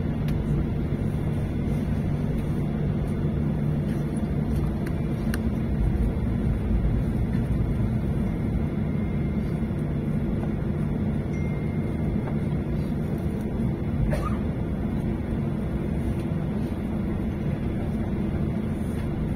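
Steady low engine rumble heard from inside a moving vehicle's cabin, with a faint click or two.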